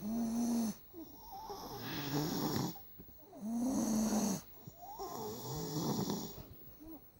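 Young boy snoring loudly in his sleep: a droning, pitched snore roughly every three and a half seconds, with rougher, rasping breaths in between.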